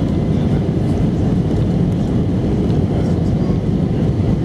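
Steady cabin noise inside an Airbus A319 airliner on approach: engine and airflow rumble, low and even.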